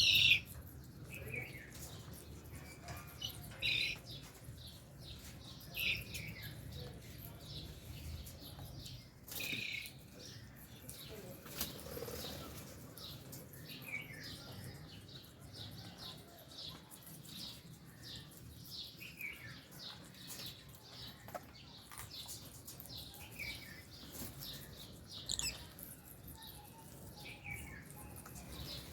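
A flock of lovebirds in an aviary chirping: many short, sharp chirps scattered throughout, a few louder than the rest, with faint clicks and rustling between the calls.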